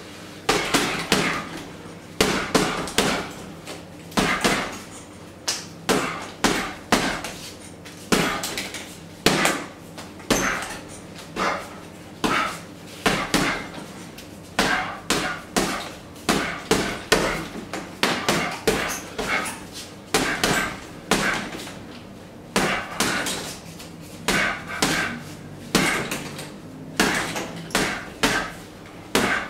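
A hanging heavy punching bag being hit by gloved strikes in quick combinations: clusters of two to four sharp thuds, then short pauses, over and over.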